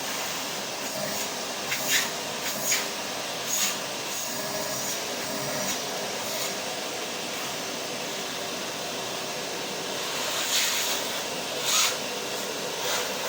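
Vacuum cleaner running steadily: an even rushing hiss over a faint low hum. A few short clicks break through, a cluster a couple of seconds in and two more near the end.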